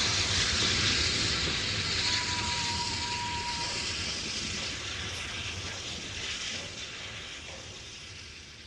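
Steam hissing from a standing steam locomotive, a steady high hiss over a low rumble that slowly fades away.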